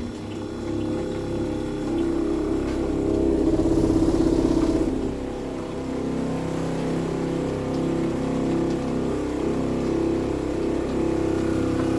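Small soft wash pump running steadily, drawing RV antifreeze into its lines. It gets a little louder for a second or so about three and a half seconds in.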